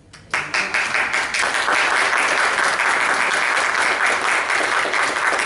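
A church congregation applauding: many hands clapping in a dense, steady patter that breaks out suddenly just after the start.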